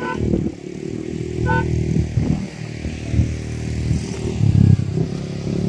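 A motor vehicle's engine running steadily close by, with a short beep about one and a half seconds in.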